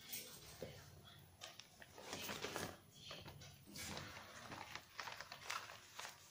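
Faint rustling and crinkling of a newspaper kite being handled and turned over on a table, with a few light taps.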